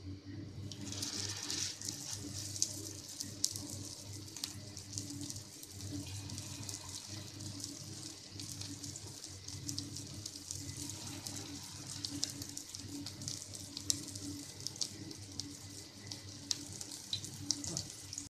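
Potato cutlets sizzling as they shallow-fry in hot oil: a steady hiss with frequent crackles and pops. The sizzle surges about a second in as the first cutlet goes into the oil.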